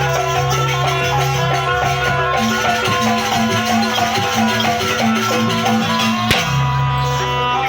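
Live traditional Javanese jaranan dance music: a percussion ensemble with rattling percussion over sustained melodic tones. A single sharp crack stands out about six seconds in.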